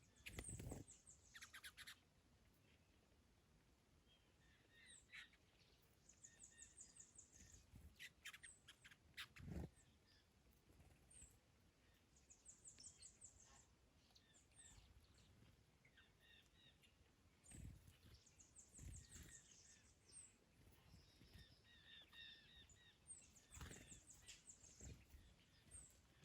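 Garden birds singing faintly: a short, high, rapid trill comes back about every six seconds among scattered chirps. A few brief low rumbles come and go.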